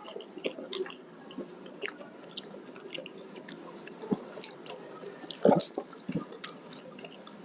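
Close-miked, wet chewing and mouth sounds of a person eating curry and rice, with many small clicks and smacks. A few louder knocks come about four seconds in, and again about five and a half and six seconds in.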